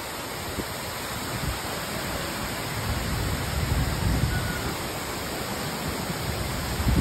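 Heavy rain pouring down in a strong windstorm: a steady rushing hiss, with gusts of wind buffeting in low surges that swell about four seconds in and again near the end.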